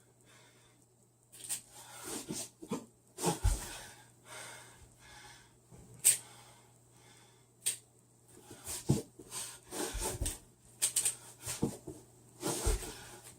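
A plastic speedcube being turned in short irregular clacking bursts, with heavy breathing from the push-ups done between moves.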